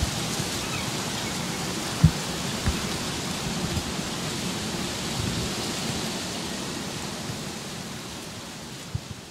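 Steady outdoor hiss with a few short low thumps, the loudest about two seconds in, easing off slightly near the end.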